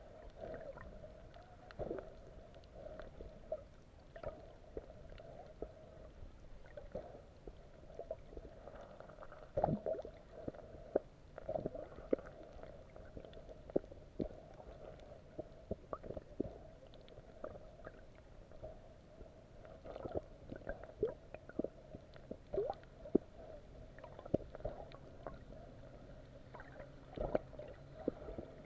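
Muffled underwater sound through a camera's waterproof housing: a steady low drone with irregular gurgles, pops and clicks of water and bubbles.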